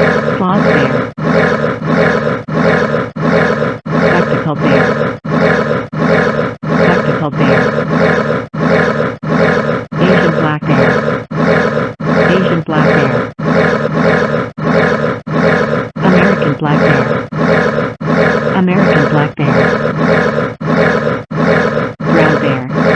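A bear growling and roaring, a rough, dense sound broken by brief, regular gaps about twice a second.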